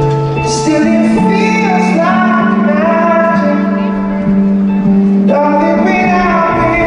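A male singer singing a slow melody with long held notes over guitar accompaniment.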